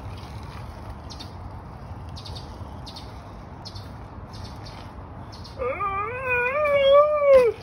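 A bicycle being ridden, with a soft tick repeating a little under twice a second. Near the end comes a man's high falsetto wail that wavers up and down for about two seconds and is the loudest sound.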